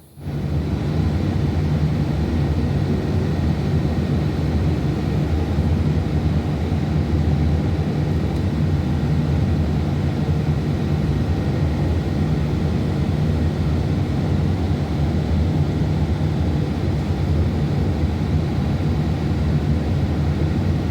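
A steady machine drone with a low hum, starting abruptly and running at an even level.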